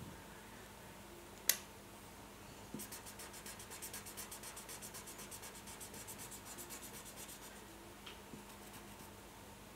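Felt-tip marker scribbling on paper in rapid, even back-and-forth strokes, starting about three seconds in and stopping about eight seconds in. There is a single sharp click about a second and a half in.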